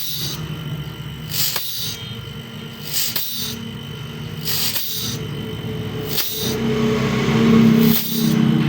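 Refrigerator compressor running on a homemade UPS inverter, with a steady electrical hum that grows heavier near the end as it is loaded. Hissing air comes and goes in spurts as the compressor's air is throttled by hand.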